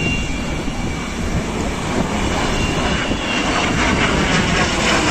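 Antonov An-124 on its landing approach, its four D-18T turbofans passing overhead as a steady jet rumble with a faint high whine, growing louder from about two seconds in.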